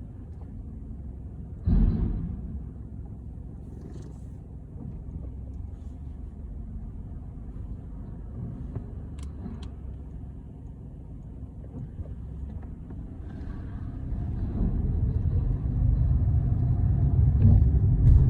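A car driving on the road: steady low tyre and engine rumble, with a single thump about two seconds in. The rumble grows louder over the last few seconds.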